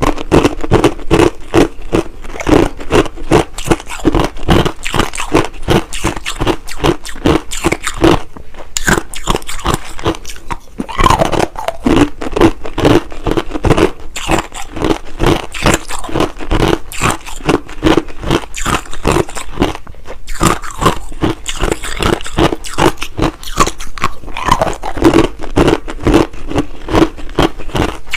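Hard, clear crushed ice being bitten and chewed close to the microphone: loud crunches in quick, uneven succession, about three to four a second.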